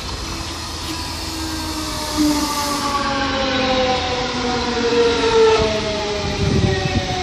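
DB Class 425 electric multiple unit passing close by, its traction motors and inverters giving a layered electric whine that slowly falls in pitch as the train slows. Near the end there is a low rumble of wheels on the rails.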